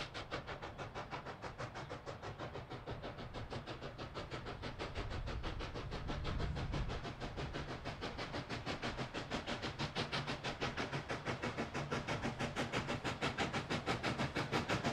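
K-36 narrow-gauge steam locomotive working hard toward the listener, its exhaust chuffing in a fast even beat of about four to five a second over a low rumble. It grows louder as it nears.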